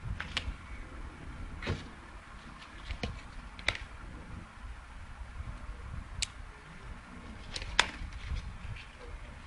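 Handling noise from a paper mailing envelope on a wooden parquet floor: scattered sharp clicks and taps with paper rustling over a low rumble.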